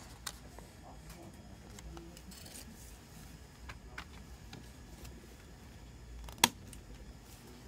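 Plastic CD jewel case and paper obi strip being handled: soft rustling and a few small plastic clicks, then one sharp, loud click about six and a half seconds in as the disc is pressed off the case's centre hub.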